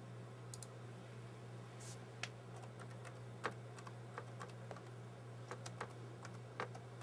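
Typing on a computer keyboard: scattered, irregular key clicks over a steady low hum.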